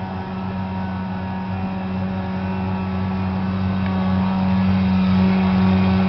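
Big-block V8 engine of a 1975 Dodge truck idling steadily at an even pitch, growing gradually louder.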